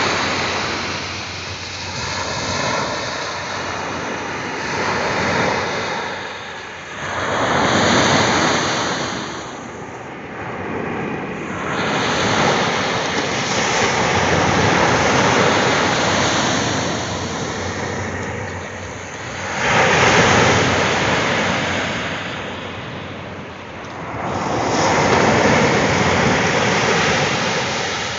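Ocean waves breaking and washing in, a steady rush of surf that swells and falls away every few seconds.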